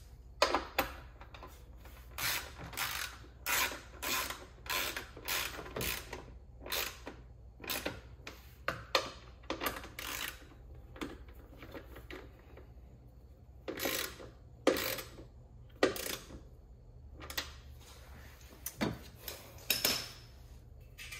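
Bolts being run in by hand to refit the Range Rover's underbody plate: a series of short ratcheting strokes, about two a second, stopping briefly twice before carrying on.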